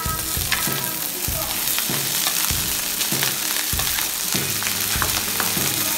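Fried rice sizzling in a wok while a wooden spatula stirs and turns it, its strokes against the pan coming regularly, a little under two a second, over a steady sizzle.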